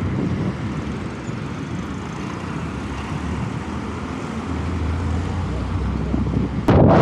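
Steady rumble of wind and road noise while riding an electric motorcycle, with no engine sound, swelling slightly toward the end. Near the end, loud wind buffeting on the microphone cuts in suddenly.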